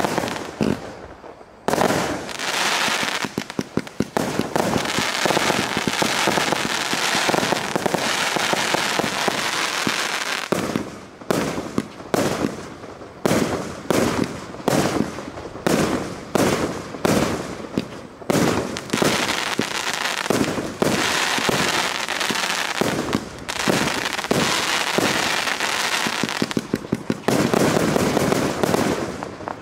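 Cosmic Fireworks Ground Shaker 254-shot compound cake firing a barrage: shots launching and bursting overhead in a dense, nearly continuous run, loosening into separate shots about every half second through the middle stretch before thickening again near the end.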